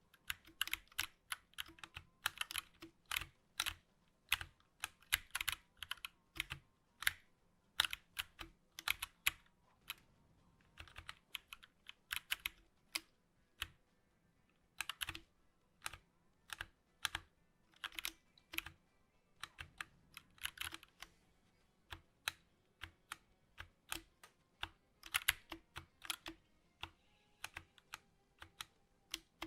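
Typing on a 60% mechanical gaming keyboard: sharp key clicks in quick runs, with short pauses between the runs.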